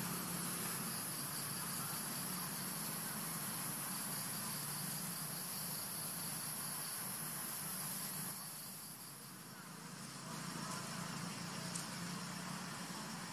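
Steady high-pitched insect drone over a faint hiss, with a low steady hum underneath. The high drone weakens about nine seconds in and carries on fainter.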